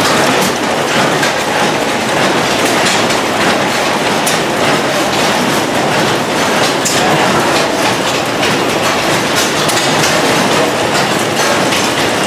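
A row of antique hopper-cooled stationary gas engines with heavy flywheels running together: a dense, loud, irregular clatter of pops and clicks.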